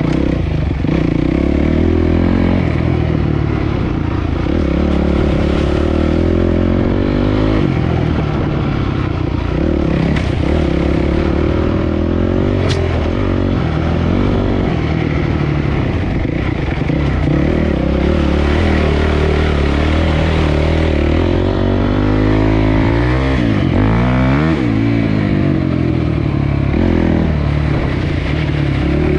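Dirt bike engine running as the bike is ridden, its pitch rising and falling with the throttle, with a deeper dip and climb in revs near the end. A single sharp click sounds about halfway through.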